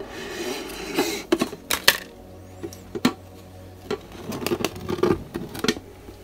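Hands handling a glass terrarium and its cork bark. A scraping rustle comes first, then a scattered series of sharp clicks and light knocks against the glass and fittings.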